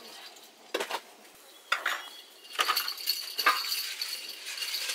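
Metal kitchenware clinking: a spoon knocking against a metal pot and metal bowls and plates being handled, about four separate sharp clinks.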